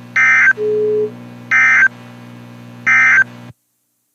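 Emergency Alert System SAME end-of-message data bursts: three short, loud two-tone warbling bursts about 1.3 seconds apart, marking the end of a tornado warning. A brief lower beep follows the first burst, and a steady hum runs under them until the audio cuts out a little after the third burst.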